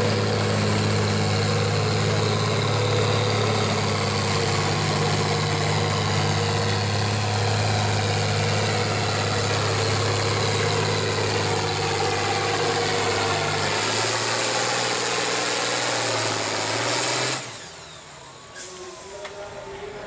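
International farm tractor engine labouring under full load as it drags a pulling sled, its pitch held steady by the speed limit. About three seconds before the end the engine sound drops away suddenly as the driver comes off the throttle at the end of the pull.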